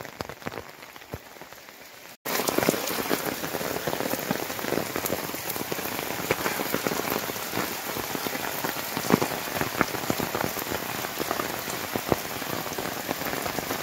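Heavy rain pattering densely on an umbrella, with many sharp individual drops. Faint for the first two seconds, then after a sudden break it is much louder.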